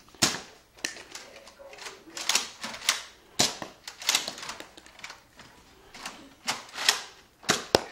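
Nerf Raider pump-action foam-dart blaster being fired over and over: a run of sharp plastic clacks from the pump and each shot, coming irregularly about one or two a second.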